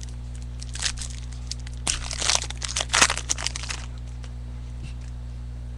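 Crinkling and crackling of plastic card packaging being handled, with a dense run of crackles in the middle and the sharpest one about three seconds in. A steady electrical hum runs underneath.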